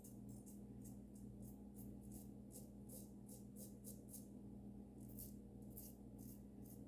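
Safety razor with a Dorco blade scraping through lathered stubble in short, quick strokes, about three a second, over a faint steady low hum.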